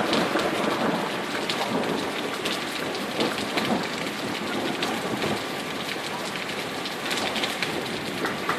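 Heavy rain pouring down, a steady hiss of a downpour with the patter of many drops striking surfaces.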